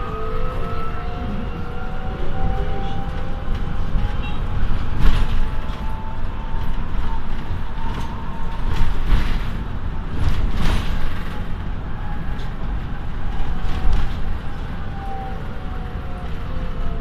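Inside a moving city bus: steady road and engine rumble with a faint drive whine that slowly rises and falls in pitch, dropping near the end as the bus slows for its stop. A few knocks and rattles come about five, nine and eleven seconds in.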